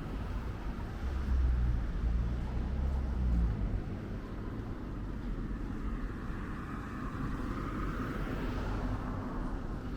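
Street traffic: a vehicle's low engine rumble for a couple of seconds, then the steadier noise of a passing vehicle that swells near the end.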